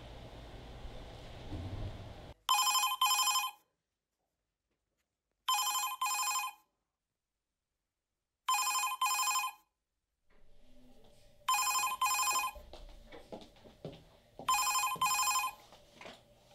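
Office telephone ringing in a double-ring pattern, five rings about three seconds apart. A low outdoor hum comes before the first ring, and faint room tone with a few small knocks runs under the last rings.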